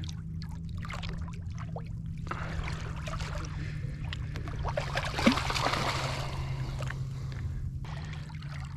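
Water splashing and dripping as a Port Jackson shark is landed in a net beside a small boat, with one sharp knock about five seconds in, over a steady low hum.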